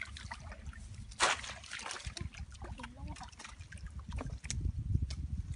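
Shallow muddy water splashing and sloshing, with one louder splash about a second in, over a low rumble that grows louder near the end.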